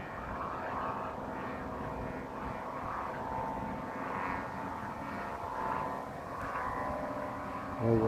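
Hummers on kites flying in strong wind, droning together: several steady overlapping tones that waver and swell, over a low wind rumble.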